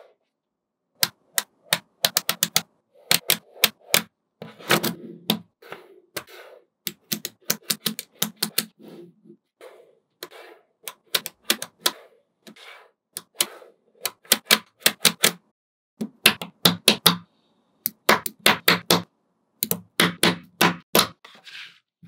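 Small magnetic balls clicking and snapping against each other as they are placed and joined, in quick irregular runs of sharp clicks with brief pauses and softer rustling between them.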